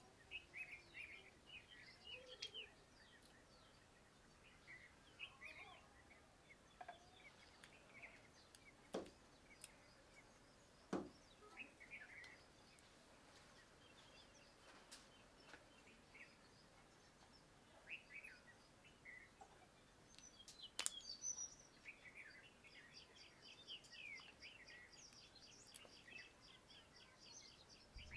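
Faint bird chirps and calls throughout, with a rapid trill near the end, and a few sharp knocks, the loudest about eleven and twenty-one seconds in.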